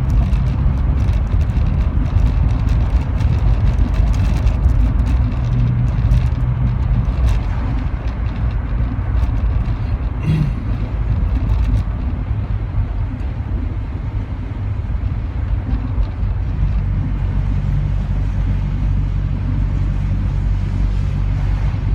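A Rover 45 heard from inside the cabin, its engine running rough on three cylinders with irregular sharp backfire pops over the steady engine and road hum. The pops come thickest in the first several seconds, with a louder one about ten seconds in: the sign of a persistent misfire.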